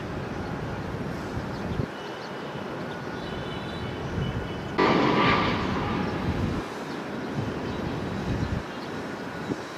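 Steady outdoor rumble of airport and traffic noise with faint engine tones, jumping suddenly louder about five seconds in for a couple of seconds, then settling back.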